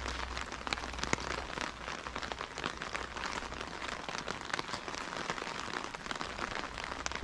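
Rain falling steadily on a wet street, an even hiss with many small sharp drop ticks throughout.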